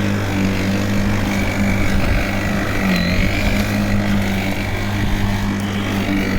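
WORX 40 cm cordless battery lawnmower running steadily while mowing grass, a loud even motor-and-blade hum. The pitch dips briefly about three seconds in.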